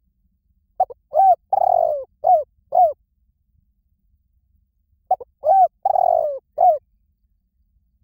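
Spotted dove cooing: the same phrase twice, about four seconds apart, each a string of about five mellow coos with a longer one in the middle.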